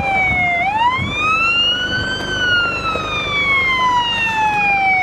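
Electronic vehicle siren in wail mode. It slides down in pitch, sweeps up over about a second and a half, then falls slowly for about three seconds before sweeping up again just after the end.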